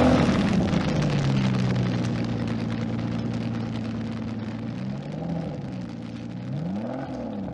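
Engine sound effect: a swelling rev at the start settles into a steady idle that slowly fades. A short rev rises and falls about two-thirds of the way through and another comes near the end, then the sound cuts off suddenly.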